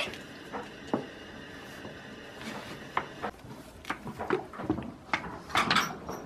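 Goats feeding at a trough and hay rack: scattered irregular knocks and clatters with rustling hay.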